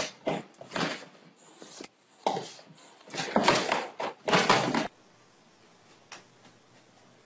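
Irregular bursts of scuffling and knocking as a dog paws and pushes at a cat on an upholstered chair. They stop abruptly about five seconds in, leaving near silence.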